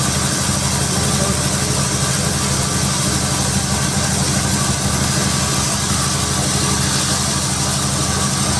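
Sawmill machinery running steadily: an engine's even hum with a constant high hiss over it, unchanging throughout.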